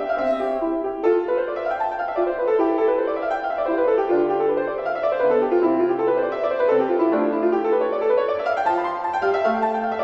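Piano music playing quick runs of notes that climb and fall, over a few lower bass notes.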